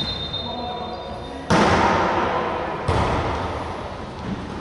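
A referee's whistle trailing off, then a volleyball struck hard about a second and a half in and hit again a little over a second later, both impacts echoing in a large gym hall.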